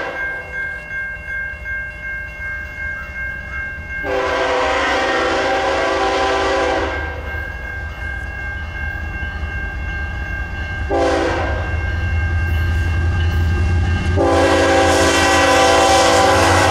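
A BNSF diesel freight locomotive's multi-chime air horn sounds for a grade crossing: a long blast about four seconds in, a short one around eleven seconds, and another long one from about fourteen seconds. Underneath, a crossing bell rings steadily while the low rumble of the approaching diesel locomotives grows louder.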